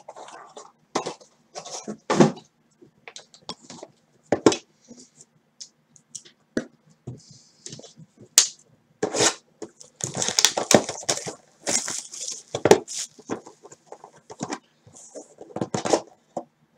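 Cardboard trading-card hobby boxes being handled and opened: irregular rustles, taps and scrapes, with a denser stretch of crinkling and tearing from about ten to thirteen seconds in.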